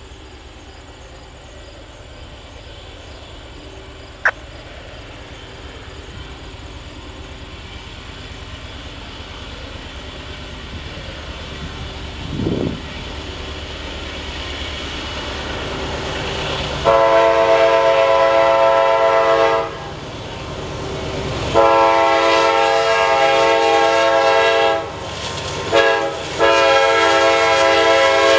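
Diesel freight train approaching, its rumble growing. Near the end the locomotive sounds its multi-chime air horn as a chord: two long blasts, a short one, then another long one. This is the grade-crossing warning pattern.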